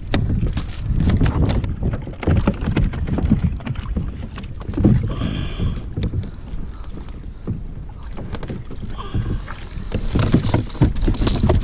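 Water sloshing and splashing against a sit-on-top fishing kayak's hull, with wind buffeting the microphone as an uneven low rumble.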